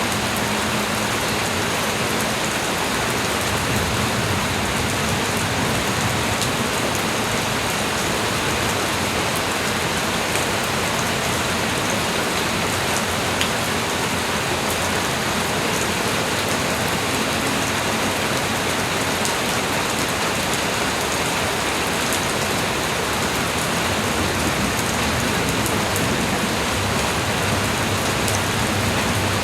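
Steady light rain falling: an even hiss of rain with scattered individual drop ticks.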